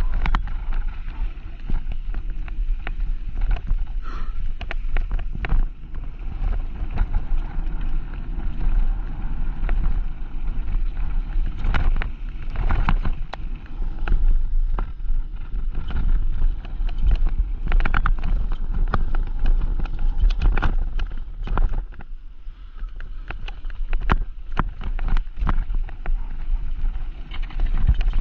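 Mountain bike descending a rough bike-park trail: steady rushing and rumbling with frequent sharp rattles and knocks as the bike goes over bumps.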